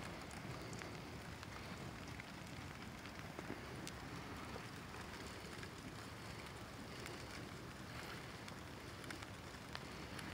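Cardboard boxes and sticks burning in a metal fire pit: a steady flame noise with scattered small crackles and pops.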